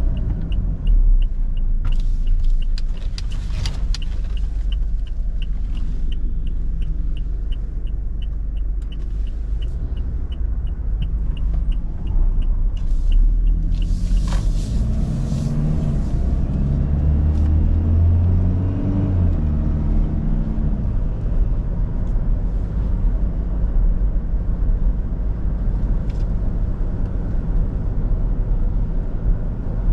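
Toyota Kijang Innova Reborn's 2GD-FTV 2.4-litre four-cylinder turbo-diesel engine and road noise, a steady low rumble. A turn-signal indicator ticks evenly, about twice a second, for the first dozen seconds, and a little past halfway the engine note climbs in steps as the car accelerates through the gears.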